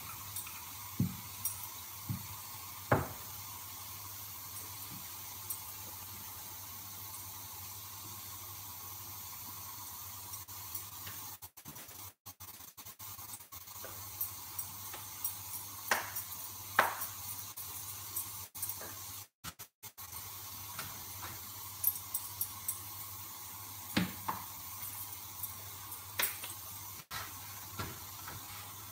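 Scattered soft knocks and taps of chapati making, a wooden rolling pin on a wooden board and dough being handled, over a steady hiss.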